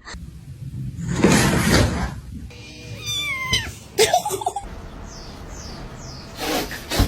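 A cat vocalizing, with a call that falls in pitch about three seconds in, among several short noisy outbursts.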